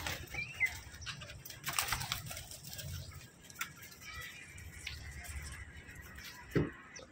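Domestic pigeons in a loft shuffling and flapping their wings, with scattered knocks and rustles. A brief high chirp comes near the start, and a sharp knock near the end is the loudest sound.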